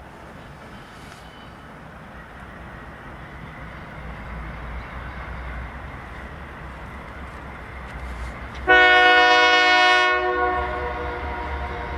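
A taconite freight train's diesel locomotives approaching with a low rumble that builds, then one loud locomotive horn blast of about two seconds, a chord of several steady tones, sounding near the end.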